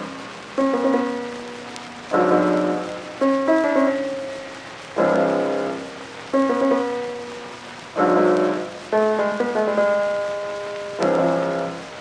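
Background music: piano chords struck about every one to two seconds, each starting sharply and fading away before the next.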